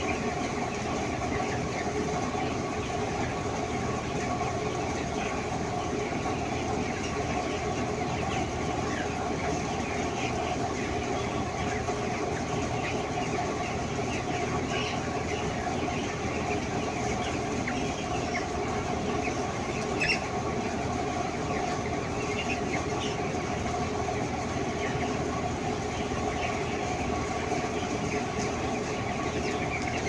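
A large flock of 18-day-old broiler chickens peeping and chirping all through, over a steady machine hum in the broiler house. A single sharp click stands out about two-thirds of the way in.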